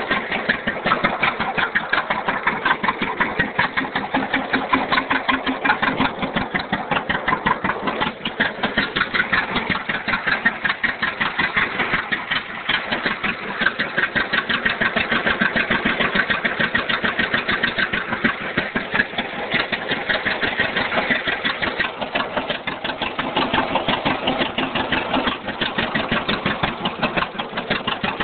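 John Deere B tractor's two-cylinder engine running steadily after a hand start, its firing pulses coming in a rapid, even beat.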